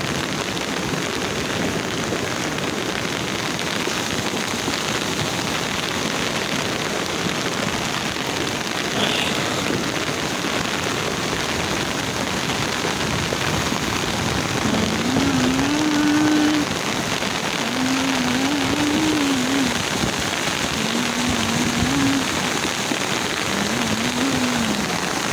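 Steady rushing noise of heavy rain and a muddy flash-flood torrent. In the second half a voice calls out a few times, briefly each time.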